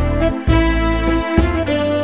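A slow melody played on a smartphone piano keyboard app: held notes that change about every half second, over a low sustained bass.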